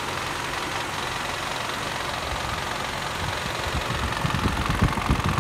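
Toyota Camry dual VVT-i engine idling with an unpleasant noise from the front of the cylinder head, which the mechanic puts down to badly worn VVT-i cam gears (cam phasers). Low rumbling thuds come in about halfway through.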